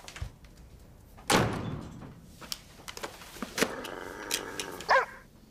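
A door slams shut a little over a second in, followed by a few small knocks and clicks.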